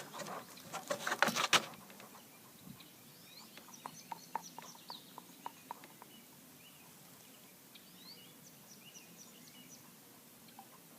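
Small birds chirping faintly outdoors, with short high chirps scattered throughout. A loud rustle of handling noise comes in the first second or so, and a run of sharp ticks follows a few seconds in.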